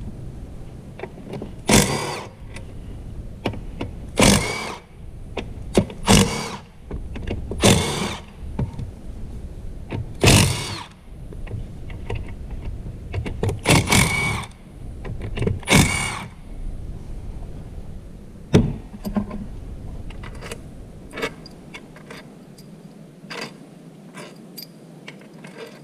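Power wrench spinning out the pump-to-case bolts of a Ford E4OD automatic transmission in about seven short bursts, each under a second. A sharp metallic clack and a few light clicks follow.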